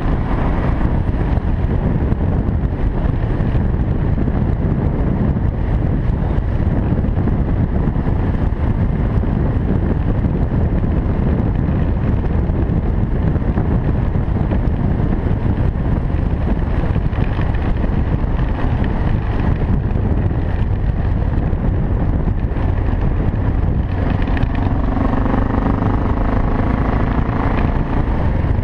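BMW 650 GS single-cylinder engine running steadily under way on a gravel road, with wind buffeting the microphone; the engine note shifts near the end.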